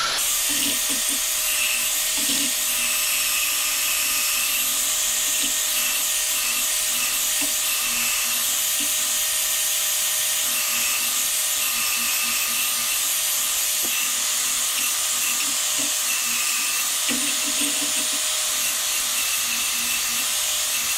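Electric drill spinning a hone inside an aluminium Mag-Lite flashlight barrel, lubricated with WD-40, smoothing corrosion rough spots out of the bore: a steady, even whirring grind that starts suddenly.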